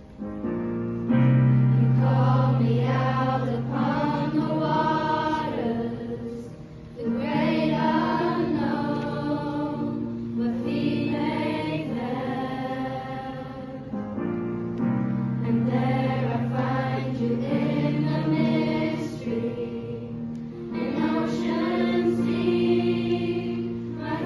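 Music with a group of voices singing together over steady held low notes, in phrases of several seconds separated by short breaks.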